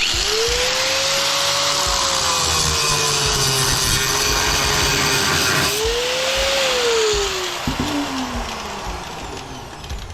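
Handheld electric power tool running under load. Its motor pitch rises, sags as it bites, surges again about six seconds in, then winds down as the tool is released.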